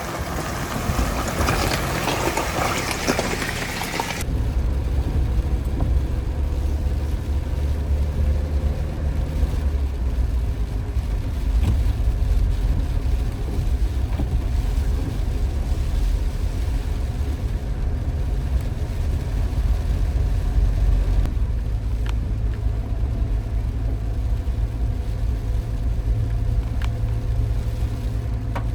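Maruti Suzuki Jimny driving in rain. For about the first four seconds there is a loud even hiss of rain and wind. It then changes suddenly to a steady low rumble of the engine and tyres on the road.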